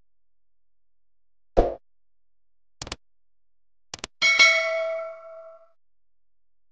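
Subscribe-button animation sound effects: a short thump about a second and a half in, a mouse click, then a quick double click followed by a bell-like ding that rings out for about a second and a half.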